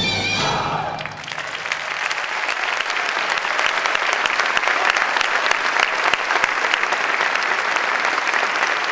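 Audience applauding: the band's last chord dies away about a second in and dense clapping swells up and holds steady.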